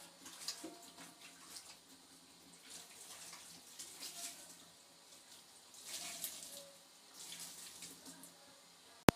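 Water from a tap splashing in a kitchen sink in uneven bursts, as in washing up, with a single sharp click just before the end.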